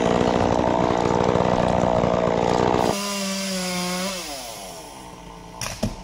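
Chainsaw at full throttle cutting into a dead mountain ash branch. Just before halfway the throttle is released: the engine drops abruptly to a lower, steady note, then its pitch falls away as it winds down. A short sharp knock comes just before the end.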